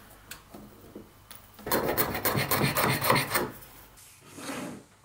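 Wood rasping against wood: a dense scraping rub for about two seconds in the middle, with a few light taps before it and a shorter, fainter rub near the end.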